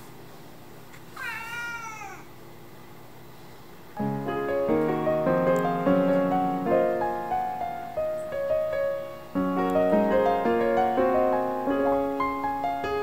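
A domestic cat meows once, about a second in: a single call that rises and then falls in pitch. From about four seconds in, louder background piano music plays.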